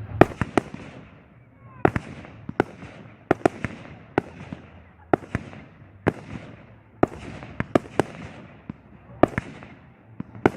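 Fireworks display: aerial shells bursting in a rapid, irregular series of sharp bangs, about one to three a second, over a steady noisy wash between the reports.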